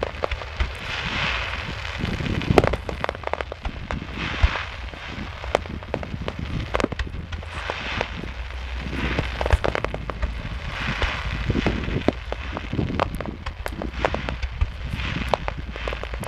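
Fireworks display heard from a distance: a string of bangs and sharp cracks from bursting shells, the loudest about two and a half seconds in, with recurring spells of crackling hiss and a steady low rumble underneath.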